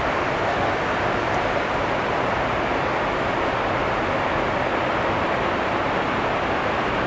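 Steady cabin noise of a Boeing 747-8i airliner in flight: an even rushing hiss over a low rumble, unchanging throughout.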